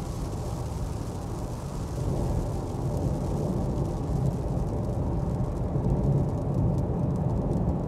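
Steady low rumble of a car driving on a highway, heard from inside the cabin, growing a little louder about two seconds in. Faint ticks of raindrops on the windscreen come in near the end.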